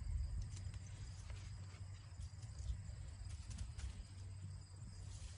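Insects trilling steadily in a garden, a thin high continuous tone, over a low rumble with a few faint rustling clicks.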